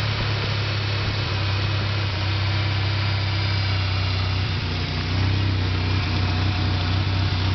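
A 2001 Ford Ranger's 2.5-litre four-cylinder engine running steadily at a raised idle while still cold, held up to speed to help it warm. The sound steps up slightly in level about five seconds in.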